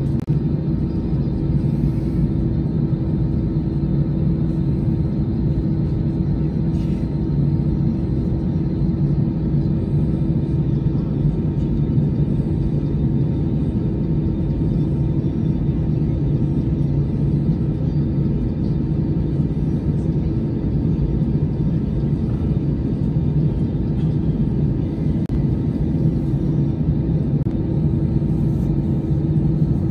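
Steady, unbroken rumble with a constant low hum, heard from inside an airliner's cabin while a de-icing truck sprays fluid over the wing.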